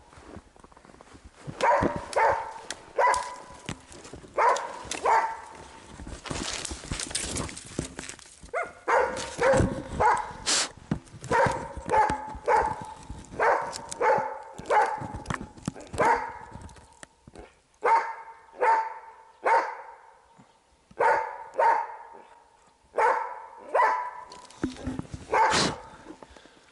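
Hunting dog barking over and over in quick runs of short barks with brief pauses between: the dog is baying at a sable it has treed.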